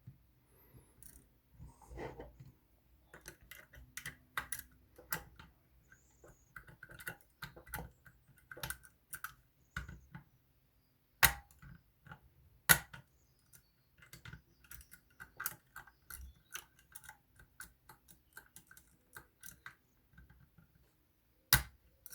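Lock picks working inside a Union 3G110 five-lever lock: irregular small metallic clicks and taps as the levers are worked, with a few sharper clicks about 11 and 13 seconds in and another near the end.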